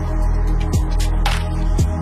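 Background music: an electronic beat with deep bass notes that slide down in pitch and sharp percussion hits.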